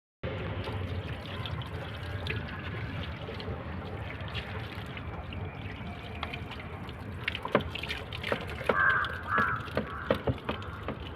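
Water pouring and trickling steadily, with a few sharp clicks and knocks in the second half and two short bird calls a little after the middle.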